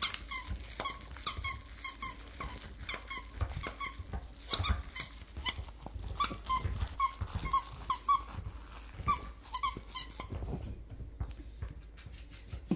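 Plush squeaky dog toy squeaking over and over as a dachshund chews it: many short squeaks in quick runs, stopping about ten seconds in.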